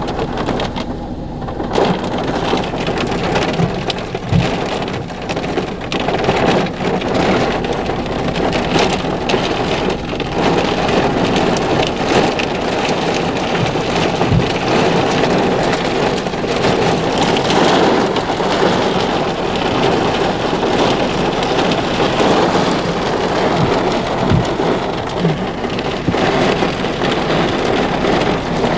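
Heavy thunderstorm downpour: a dense, steady rain with many individual drops hitting.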